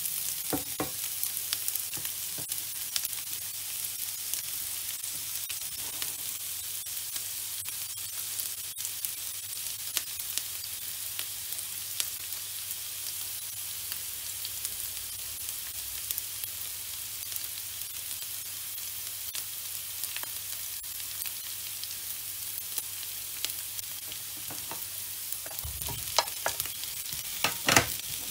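Julienned carrots and onion sizzling steadily in hot oil in a frying pan, with a wooden spatula scraping and tapping as they are stirred at the start. Near the end, a burst of louder clatter and knocks as sliced mushrooms go into the pan and are stirred in.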